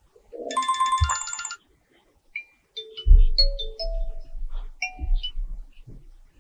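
Alcatel 1 phone's built-in ringtones previewing through its speaker: a short, bright chiming burst that stops abruptly after about a second, then from about two and a half seconds in a different ringtone's electronic melody, stepping upward in pitch over a bass line.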